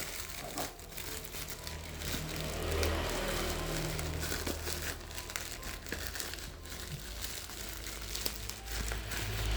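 Packaging being handled and crinkling in irregular bursts, over a steady low hum.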